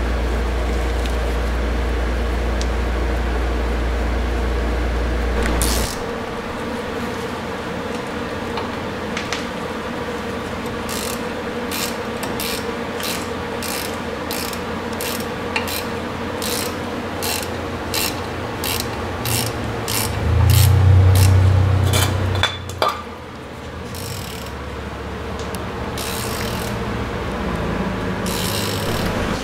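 Hand ratchet clicking in an even rhythm, about two clicks a second, as a bolt on the front brake caliper is run in. About two-thirds of the way through there is a louder low rumble lasting a couple of seconds.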